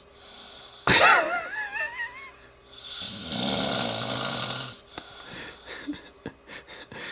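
A man asleep and snoring loudly, one long snore in the middle. About a second in there is a sudden loud snort with a wavering, whistle-like wheeze, the loudest sound here. A few faint ticks follow near the end.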